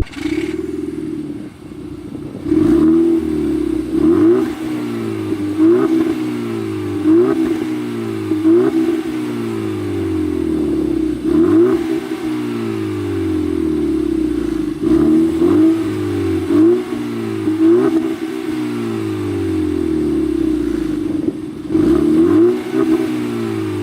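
Stock exhaust of a 2010 Seat Ibiza Cupra Bocanegra's 1.4 TSI four-cylinder being blipped again and again, each rev rising quickly and falling away, about every second and a half.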